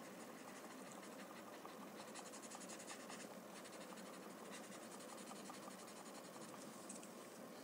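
Faint, quick scratchy strokes of a pointed shading tool rubbing on a paper drawing tile as graphite shading is laid in and blended.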